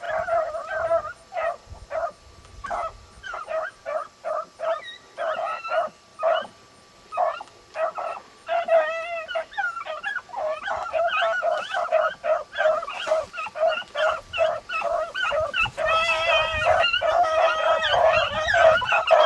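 Beagles baying as they run a rabbit's scent trail: a quick string of short barks with a few longer, wavering howls, the calls overlapping more thickly from about halfway as more voices join in.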